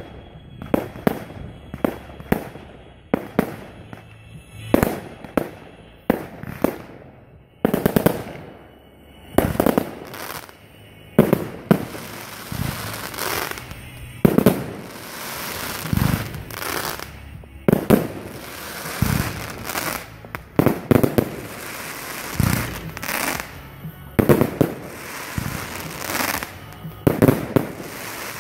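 Fireworks display: aerial shells bursting in a rapid series of sharp bangs, about one a second, with some quick clusters of reports.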